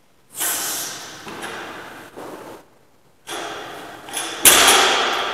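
Loaded barbell with bumper plates knocking and clanking as it is lifted, with a loud thud about four and a half seconds in.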